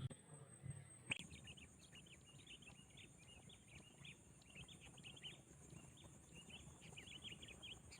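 Faint, rapid chirping of small birds, beginning just after a sharp click about a second in.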